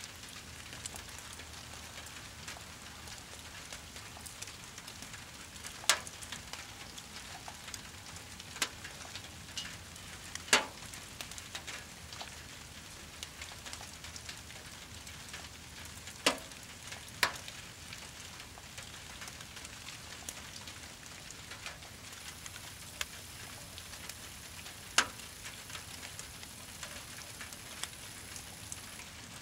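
Brush-pile fire crackling and hissing in steady rain, with about five sharp pops from the burning wood.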